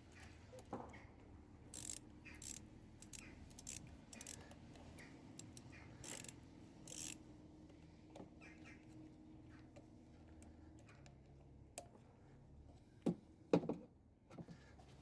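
Hand tools being worked on the engine: scattered light metallic clicks and scrapes, with two sharper knocks near the end.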